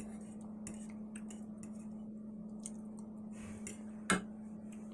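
Small, sharp, scattered clicks of someone chewing food, with one sharper click about four seconds in, over a steady low hum.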